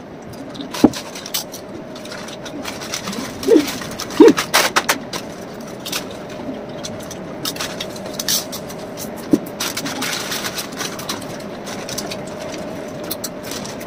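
Foil potato-chip bags crinkling and rustling as they are handled, with the crunch of chips being eaten: a run of irregular sharp crackles and clicks over a faint steady hum.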